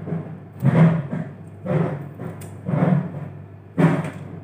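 Coriander being cut over a plastic cutting board: a rough cutting-and-knocking sound that repeats about once a second.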